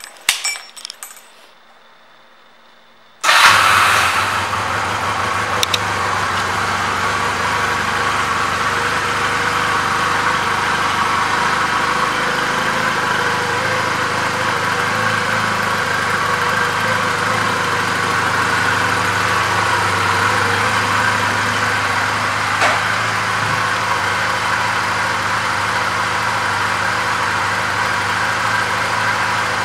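2009 Honda Rebel 250's air-cooled parallel-twin engine starting about three seconds in, after a few light clicks, then idling steadily.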